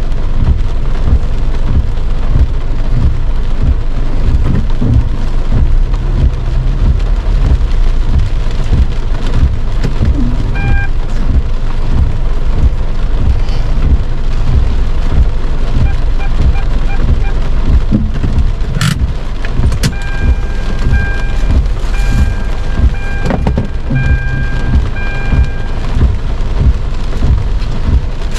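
Heavy rain drumming on a car's roof and windshield: a loud, dense patter with a deep rumble underneath. In the second half an electronic beep repeats at an even pace for several seconds.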